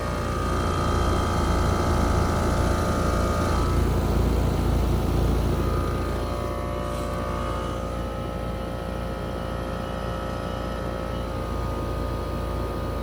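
An American Standard heat pump's outdoor unit running in heat mode, with a steady hum from the compressor and fan. Its outdoor coil is a little bit frozen.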